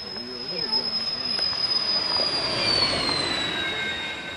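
Racing sailplane making a high-speed finish pass with no engine: a high airflow whistle that drops in pitch as the glider goes by, over a rush of air that swells and fades, loudest about three seconds in.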